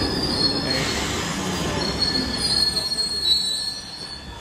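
Glasgow Subway train pulling into the platform and slowing, with a high-pitched squeal over the running rumble and a short hiss about a second in; the sound drops away near the end as the train comes to a stop.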